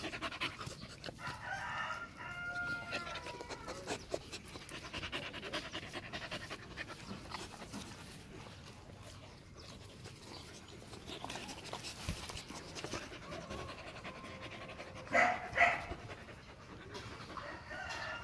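Four-month-old Rottweiler puppies playing rough: panting, mouthing and scuffling, with a few whiny calls early on. Two short, loud barks come about 15 seconds in.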